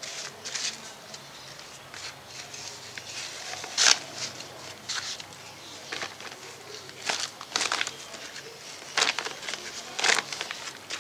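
Digging a planting hole in potting soil in a planter bag: a series of irregular scraping, crunching strokes, the loudest about four seconds in and again near the end.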